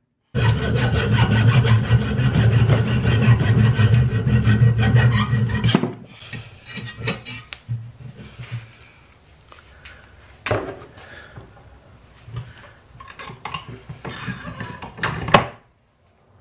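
Hand saw cutting through the end of the wooden axe handle where it sticks out of the head's eye: quick scratchy strokes for the first five or six seconds, then quieter, scattered scraping and small knocks, with one sharp knock near the end.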